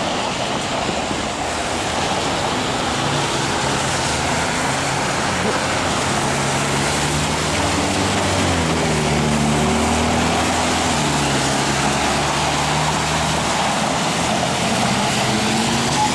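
Road traffic on wet pavement: a steady hiss of tyres with car engines under it. About halfway through a vehicle passes close, its engine note rising and falling.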